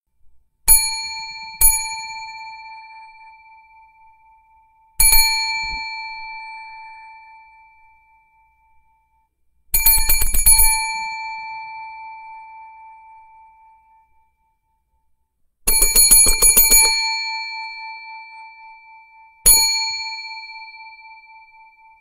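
A small metal bell rung repeatedly. It gives single dings about a second in and again just after, another around five seconds in, a rapid flurry of dings around ten seconds in, and a longer flurry around sixteen seconds in. A last single ding comes near the end, and each ring fades out slowly over several seconds.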